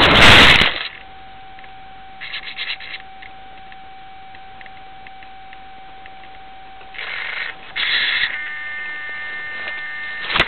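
Onboard camera of a Skorpion model glider: a loud rushing, scraping noise as the model skids into long grass, cutting off suddenly under a second in. After that a faint steady high tone, with two short buzzy bursts and a click near the end.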